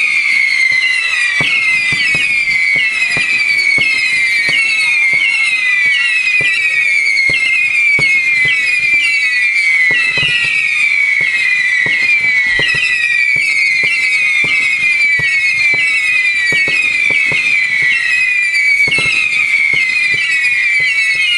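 Fireworks display: a dense barrage of whistling fireworks, many shrill whistles overlapping and each dropping in pitch, over a steady stream of sharp bangs and crackles.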